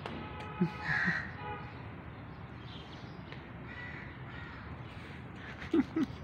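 A crow cawing: one harsh call about a second in and a fainter one around four seconds in. A few short, sharp low sounds come near the end.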